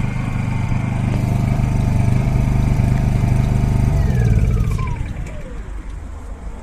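Honda EU16i inverter generator's single-cylinder four-stroke engine running steadily, then shutting down about four seconds in, with a falling whine as it spins to a stop.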